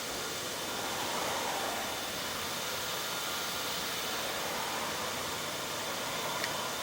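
Steady airy hiss of background noise, like a fan or moving air, with a faint click near the end.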